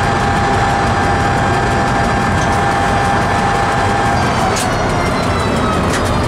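Train running through a railway tunnel: a loud, steady rumble of wheels on rails, with a steady high whine that stops about four seconds in and a couple of sharp clicks near the end.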